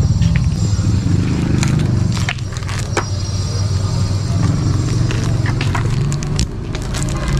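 A heavy, steady low rumble, with footsteps and then the rustle of a plastic document sleeve and the clicks of a shoulder bag's strap clip being handled.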